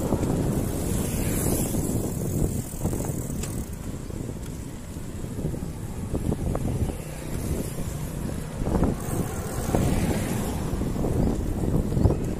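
Wind buffeting the microphone while riding along a road, a steady low rumble with a hiss of road and tyre noise.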